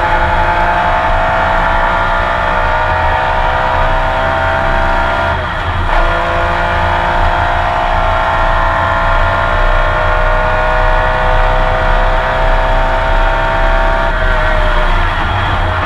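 Porsche 911 RSR flat-six racing engine heard onboard at full throttle, rising in pitch through a gear. About five and a half seconds in there is a brief break for an upshift, then a long pull in the next gear, and about fourteen seconds in the pitch drops as the driver lifts.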